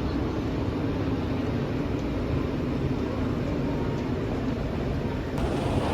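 Steady low rumble of train and railway station noise, with an abrupt change in the background about five seconds in.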